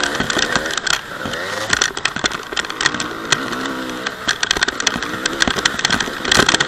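Honda CR250 two-stroke single-cylinder dirt bike engine being ridden. Its pitch repeatedly rises and falls with the throttle, with many sharp clicks and rattles throughout.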